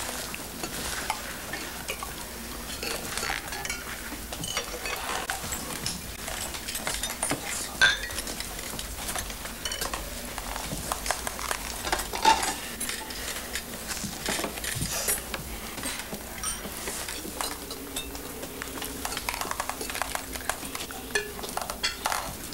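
Spoons and cutlery clinking and scraping on china bowls and plates as several people eat at a table, with many small sharp clicks throughout and a faint low hum underneath.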